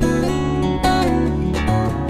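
Background music: an acoustic guitar strumming chords, with a new chord struck about every second.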